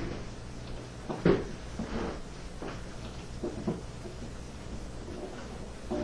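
A few light wooden knocks and clunks as solid oak cabinet parts are handled and pressed together, the clearest about a second in.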